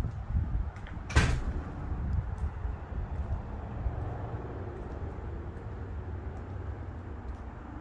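Low rumbling noise on a phone's microphone, with one sharp knock about a second in that stands out as the loudest sound.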